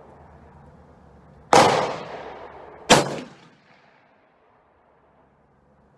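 Two rifle shots about a second and a half apart, each a sharp crack; the first has a long echoing tail, the second dies away sooner.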